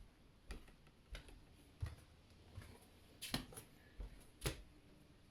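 A run of soft taps and clicks, roughly one every half to three-quarters of a second, each with a dull thud under it. The two loudest come a little past three seconds in and at about four and a half seconds.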